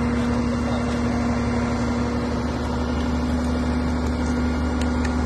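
Fire truck's aerial ladder unit running: engine and hydraulics giving a steady, unchanging hum.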